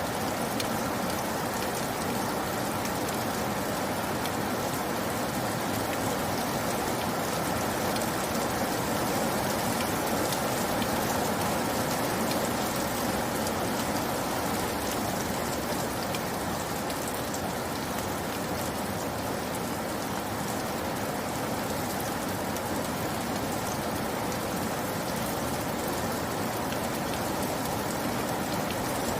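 Steady rain falling on a surface, with a dense patter of individual drops.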